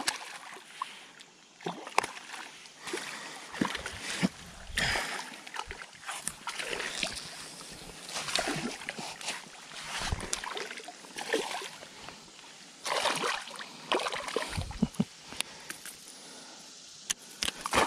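A hooked river fish splashing and thrashing at the surface as it is played in close to the bank and lifted from the water, in irregular splashes and sloshes.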